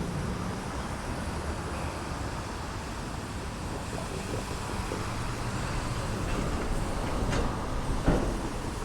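Steady background rumble of road traffic, with two brief knocks near the end.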